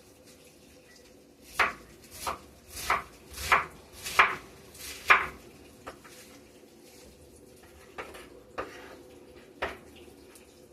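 Kitchen utensils knocking on a counter or cookware: a quick run of six sharp knocks, about two a second, then three lighter knocks near the end, over a faint steady hum.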